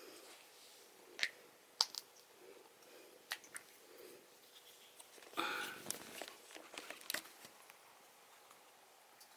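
Faint scattered clicks and small handling noises in a quiet room, with a brief rustle about five and a half seconds in.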